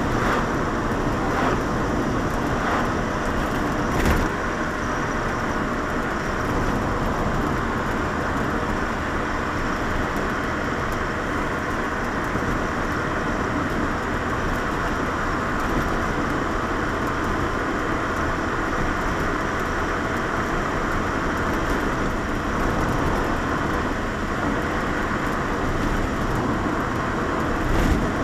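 Lotus Elise being driven, heard from inside the cabin: steady engine and tyre noise. A short thump comes about four seconds in, and another near the end.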